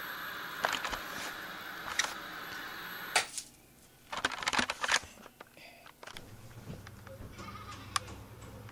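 Old Sony Trinitron KV-1214 colour TV hissing with the white-noise static of an empty channel, with a few light clicks. A sharp click about three seconds in, the set being switched off, cuts the hiss dead. Handling clicks follow, and a low steady hum starts near the end.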